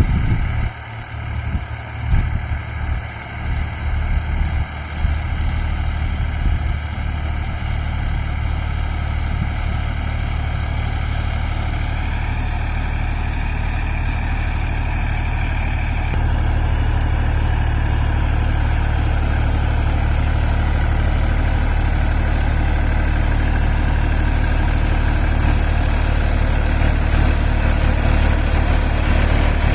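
Massey Ferguson 254 DynaSmart tractor's diesel engine running steadily, with uneven low rumbling over the first few seconds; the engine gets louder about halfway through.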